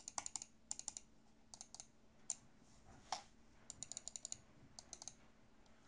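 Mouse buttons clicked in quick runs of several sharp clicks, on a black wired gaming mouse with ordinary, non-silent switches.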